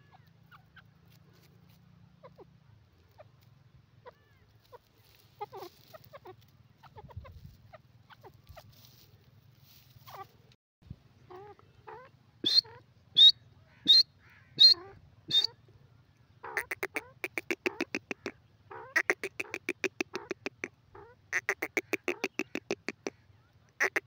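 Grey francolin calling. Faint scattered clucks come first. About halfway through there are five sharp, high calls a little over half a second apart, then rapid chattering runs of repeated call notes in bursts of about two seconds each.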